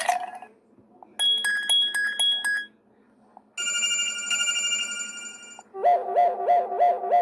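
Wileyfox Swift 2 Plus ringtones previewed one after another, with short silences between them: a brief chiming tone, then a held bell-like chord, then a warbling two-tone trill pulsing about four times a second, like an old telephone bell.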